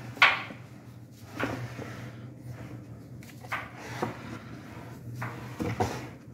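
Plastic rearing crates sliding in and out of a wooden rack: a sharp knock about a quarter second in, then lighter knocks and scrapes every second or so, over a steady low hum.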